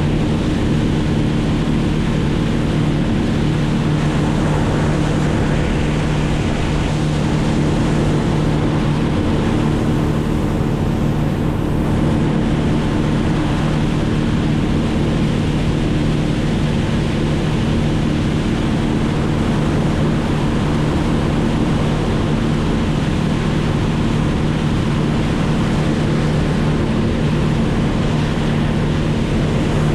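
An engine running steadily at constant speed, a continuous drone with a rushing wash of wind or water over it.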